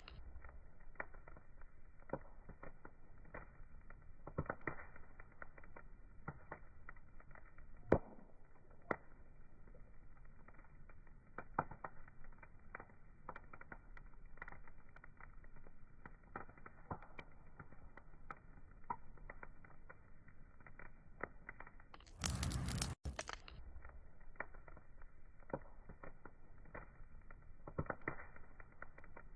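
Wood fire crackling, with irregular small pops and snaps over a soft hiss and one sharper pop about 8 seconds in. About 22 seconds in, a brief louder rush of noise lasts under a second.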